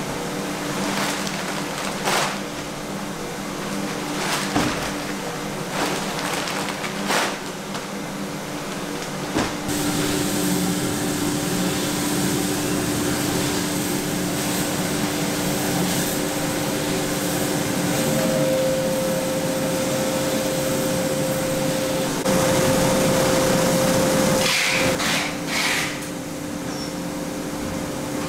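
Steady hum and whir of coffee-roasting machinery such as a running roaster's fans, with a few short knocks in the first several seconds. A wider hiss of moving air joins about ten seconds in and is louder for a few seconds past the twenty-second mark.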